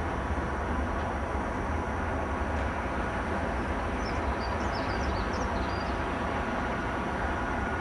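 Loaded steel-coil freight wagons rolling past in a steady low rumble. A few short bird chirps come through about halfway.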